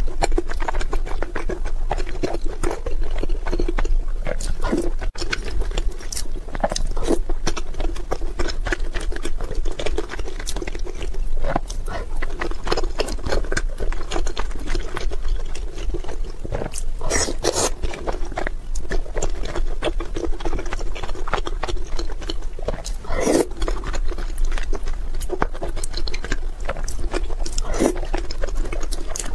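Close-miked chewing and wet lip smacking as soft, saucy food is eaten, with a constant stream of short smacks and clicks.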